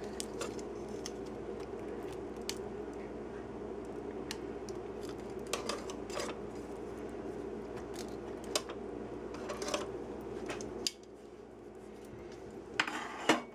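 Metal tongs clicking and scraping against a wire roasting rack and pan while a roasted Cornish game hen is turned over, with a louder clatter near the end. Under it runs a steady hum that stops about eleven seconds in.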